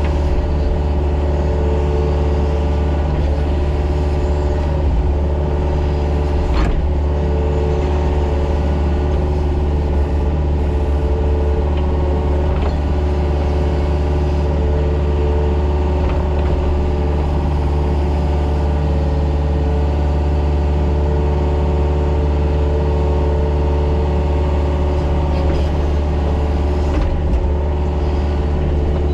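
Mini excavator's diesel engine running steadily at working speed while it grades, with a couple of brief knocks.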